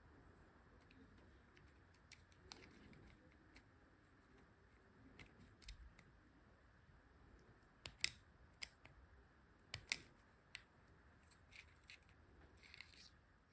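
Faint, sharp clicks and ticks, scattered irregularly, with a handful of louder ones in the middle, over a quiet room.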